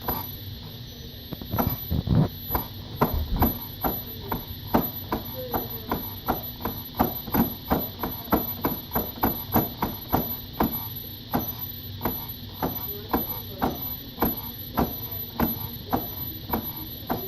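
Gotway MSuper V3 electric unicycle making a repeated popping noise: sharp pops about three a second, over a steady hum and a faint high whine. The popping is the fault the owner is showing.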